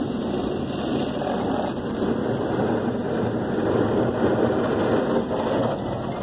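Car wash gantry spraying water and soap over the car, a steady rushing hiss with spray hitting the roof and sunroof, heard from inside the cabin. It swells a little about four seconds in.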